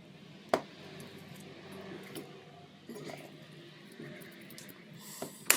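Tools and parts being handled while a kitchen ventilation fan motor is worked on: a sharp click about half a second in, scattered light ticks, and a loud metallic clatter near the end.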